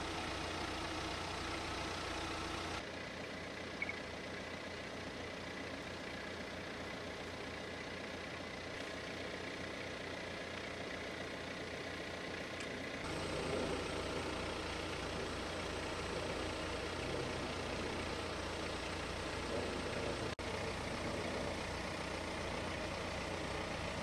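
Steady hum of a vehicle engine idling. The background changes abruptly about three and thirteen seconds in.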